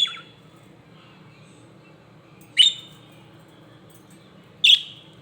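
Pet budgies (budgerigars) giving three short, sharp chirps about two seconds apart: one at the start, one about two and a half seconds in, and one near the end.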